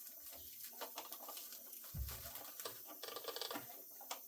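Plastic packaging being worked loose from an RC truck by hand: light crinkling, small clicks and ticks, and a soft knock about two seconds in.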